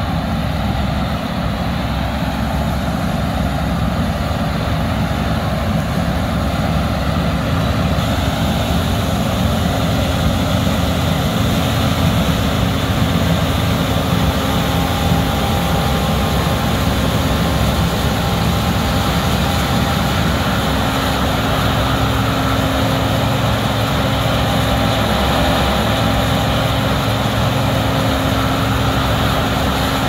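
Steady mechanical engine hum with a few faint held whining tones over it.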